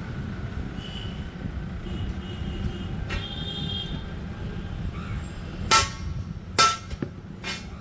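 Three ringing metal clangs about a second apart, typical of a hammer striking steel in iron fabrication work, over a steady low rumble.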